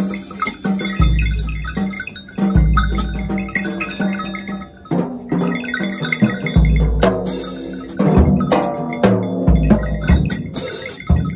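Free-improvised percussion on drum kit and hand-held percussion: a low drum thud every couple of seconds, mixed with many ringing, bell-like metallic strikes.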